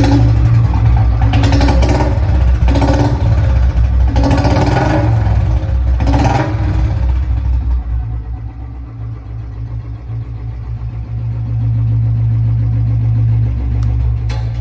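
2015 Royal Enfield Bullet Standard 350's single-cylinder engine running, blipped up several times in the first seven seconds, then settling back to a steady low idle.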